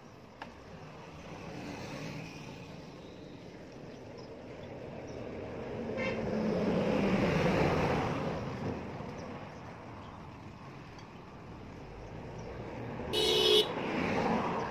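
A motor vehicle passing on the road, its sound swelling and fading over several seconds, then a short horn toot near the end.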